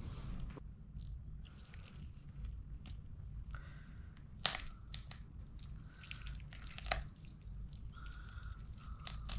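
Fingers tearing apart a whole curry-cooked chicken, pulling a leg off the carcass: soft wet squishing and tearing of the meat, with scattered small clicks and two sharp clicks about four and a half and seven seconds in.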